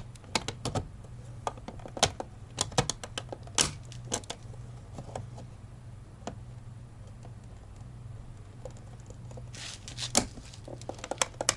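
Sharp plastic clicks and taps as the side-mirror glass of a 2013 Cadillac ATS is pressed and snapped back onto its mount in the mirror housing. The clicks come thick in the first few seconds, thin out, then cluster again near the end, over a steady low hum.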